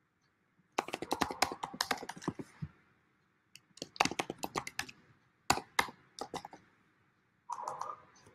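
Typing on a computer keyboard in several quick runs of keystrokes with short pauses between them.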